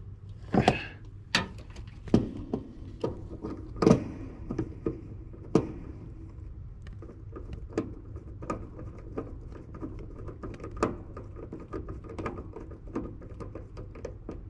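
Irregular knocks, bumps and small clicks from hands working in a cramped spot while tying in wires, several sharp knocks in the first four seconds and lighter clicks after, over a steady low hum.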